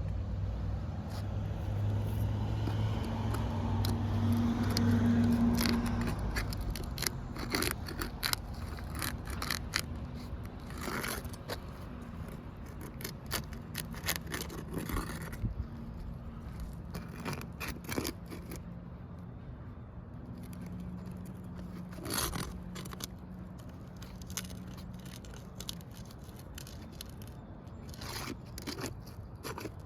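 Asphalt roof shingles being worked loose by hand during a repairability test, giving irregular scrapes, crackles and sharp clicks. A low engine hum fades out over the first several seconds.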